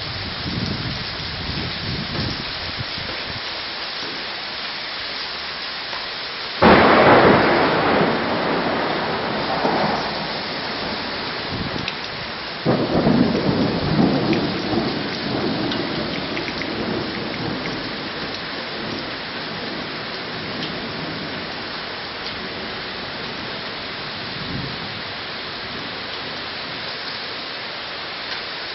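Heavy thunderstorm rain pouring steadily. Two loud claps of thunder break in, about seven and thirteen seconds in, each rolling away over several seconds, with softer low rumbles at the start.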